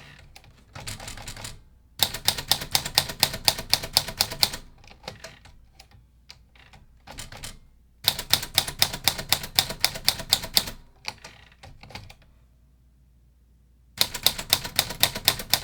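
Smith Corona Sterling manual typewriter being typed on: three quick runs of key strikes, about eight a second, with a few slower, quieter clicks in the pauses between them.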